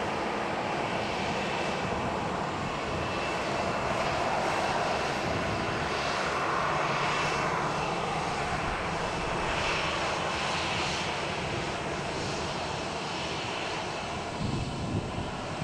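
Boeing 737-800's CFM56-7B turbofan engines running at low power as the airliner rolls slowly after landing: a steady jet rumble with a faint high whine. A few low bumps come near the end.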